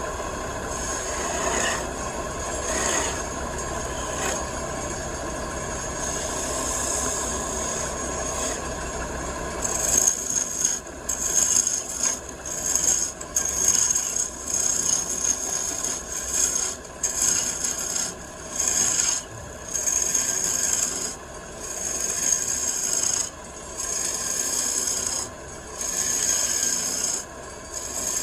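Wood turning on a lathe with a tool working the spinning table-leg blank. A steady rasping runs for about ten seconds, then comes in repeated strokes, roughly one a second.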